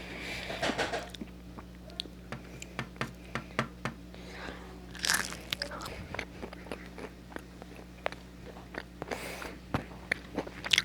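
Crunchy fries being bitten and chewed: a rapid, irregular run of sharp crunches, with a few longer, louder crunching bursts.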